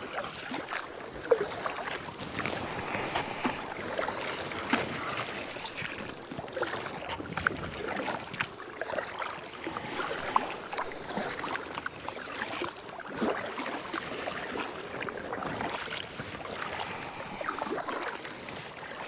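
Kayak being paddled: the paddle blades dip and splash in the water at an uneven rhythm, with drips and small sharp knocks throughout.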